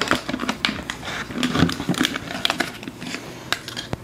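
Plastic packaging crinkling and small plastic items clicking and knocking as they are handled, in a run of irregular, sharp crackles.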